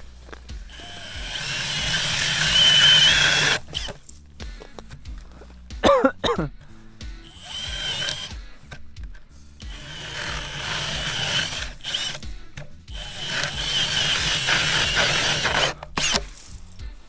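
Power ice auger boring a hole through the ice, with the motor whining under load in several runs of a few seconds each and short pauses between. A brief squeaky glide comes about six seconds in.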